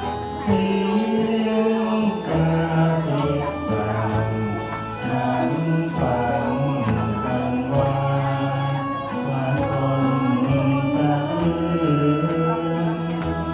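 A man singing a Thai song into a microphone over a karaoke backing track with a steady beat.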